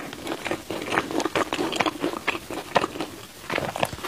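Chewing and biting a baked mochi bun with a crisp crust: an irregular run of small crunching clicks, with a fresh bite near the end.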